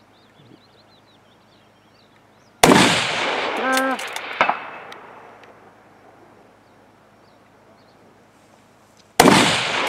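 Two rifle shots from a scoped, bipod-rested rifle, one a little over two and a half seconds in and the second near the end, each followed by a long echo.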